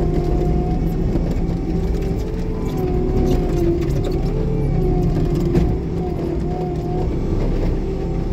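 Bobcat T76 compact track loader's diesel engine and Loftness forestry mulcher running steadily under load, heard from inside the cab. A whine wavers up and down in pitch over a low drone, with scattered sharp ticks.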